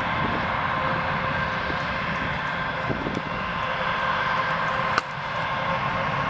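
Boeing 737 jet engines running with a steady whine over a low rumble. A sharp click about five seconds in.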